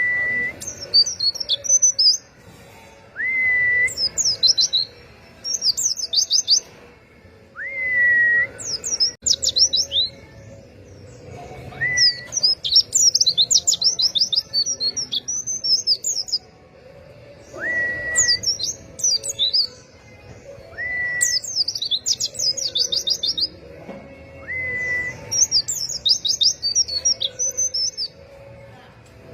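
White-eyes (pleci) singing bursts of rapid, high, jumbled chirping phrases every couple of seconds. Between them, a lower whistled note glides up and then holds steady for about half a second, repeating around nine times.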